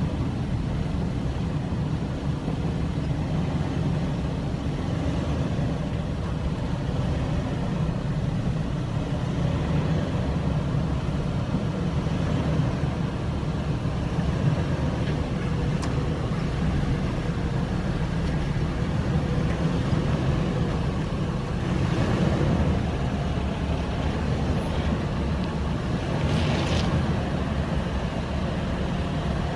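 2011 Toyota 4Runner Trail Edition's 4.0-litre V6 running steadily as the truck drives over a rough dirt off-road trail, a constant low rumble of engine, drivetrain and tyres. A brief hiss near the end.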